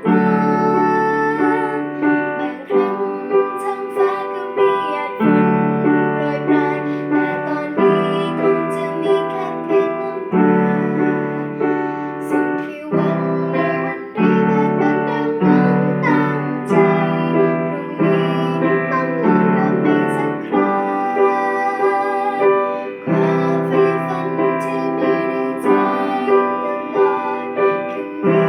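Piano playing a slow pop-ballad arrangement: sustained chords struck in a steady rhythm under a melody line.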